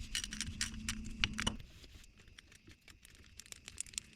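Light metallic clicks, taps and rattles of tools being handled, busiest in the first second and a half, then thinning to a few faint ticks.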